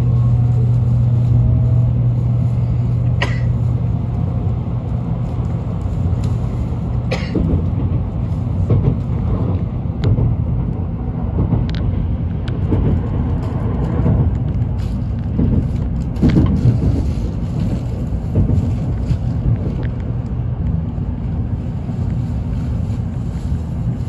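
Shinkansen bullet train heard from inside the passenger cabin, pulling away from a station and gathering speed. A steady low hum fades after about six seconds into a rougher rumble of the running train, with a few sharp clicks along the way.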